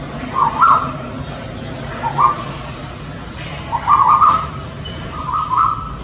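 Male Asian koels calling in a territorial exchange between two males defending a tree. Four short calls come about a second and a half apart.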